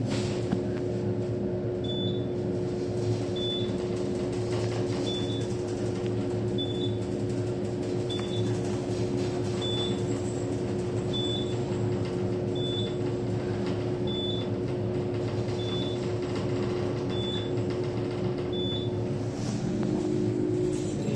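Service freight elevator car travelling down with a steady machine hum, joined by a short high beep about every second and a half, twelve in all. The hum changes about a second before the end.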